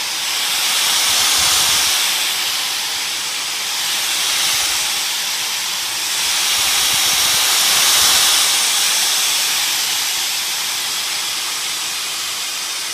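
Dyson DC56 cordless handheld vacuum running with a loud, steady hiss as it sucks cat hair off a curtain. The level swells and eases every few seconds.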